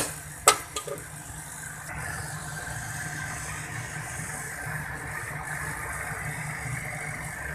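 A couple of sharp clacks on the cooking pan near the start, then a steady low hum with a light hiss as the glass-lidded pan of mango pickle cooks on the gas stove.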